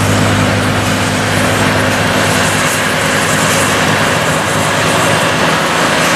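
Trackless tractor's engine running steadily under load while its 75-inch ribbon snowblower cuts into a snowbank, with a dense steady hiss of snow being thrown out through the telescopic chute. The low engine hum eases a little about a second in.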